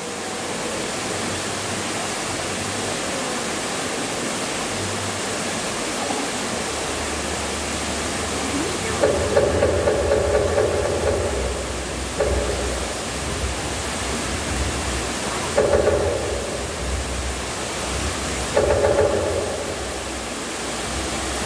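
Steady rushing noise, like a waterfall or rain ambience, with a low rumble joining about a third of the way in and four short louder bursts in the second half.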